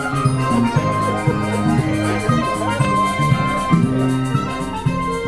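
Upbeat Latin-style music with a steady bass beat, played as a scene-change interlude.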